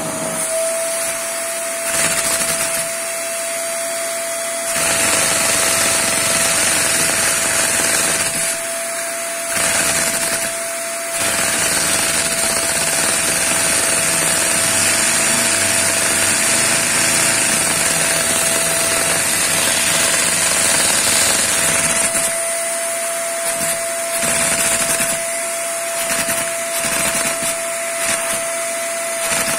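Vacuum cleaner running with a steady whine and hiss, its suction driving a LEGO inline two-cylinder vacuum engine that is hand-cranked to start. The engine's rapid mechanical clatter comes and goes, running longest from about 11 to 22 seconds in.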